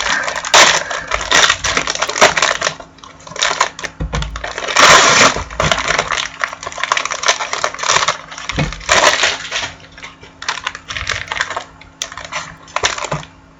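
Trading-card pack wrappers crinkling and cards being handled: an irregular crackling rustle with louder stretches that stops abruptly near the end.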